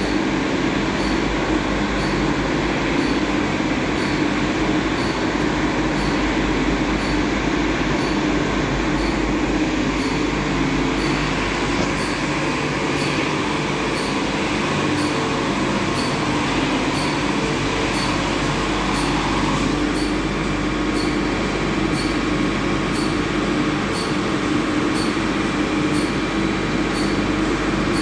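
Automatic soft-cloth car wash running: a steady mix of spraying water, spinning wash brushes and machine hum, heard through the glass wall of the wash bay, with a faint tick about once a second.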